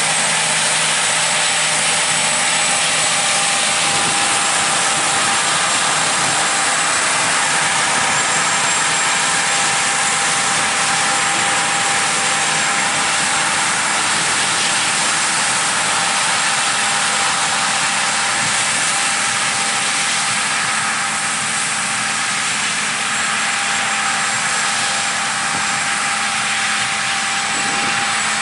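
Harvest machinery running steadily under load, a constant mechanical noise with a steady high whine over it.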